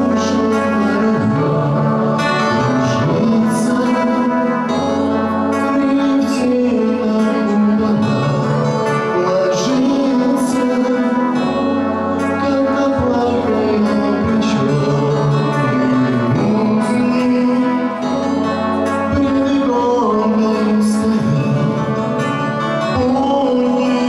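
A young man singing a Russian song into a handheld microphone over instrumental accompaniment.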